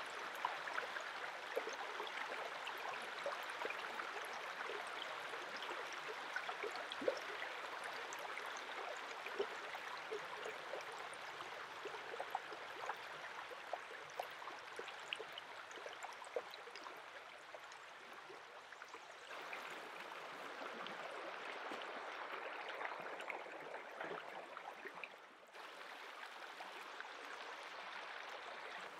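Shallow stream running over pebbles, with small splashes and drips as hands rinse a fish in the current. The water sound changes abruptly twice in the later part.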